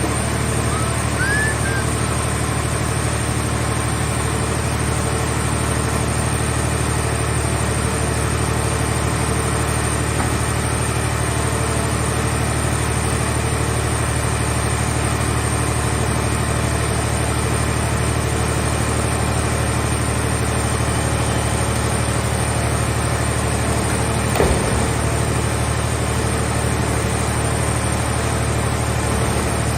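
Heavy engine of a car-scrap baler running steadily with a deep, even hum; one short knock about 24 seconds in.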